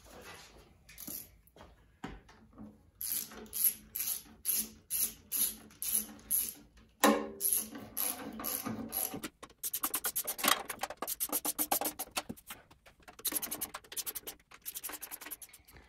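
Hand ratchet clicking as the oil pan bolts on a flathead six engine are run in, with slower strokes early on and then a fast run of clicks from about the middle.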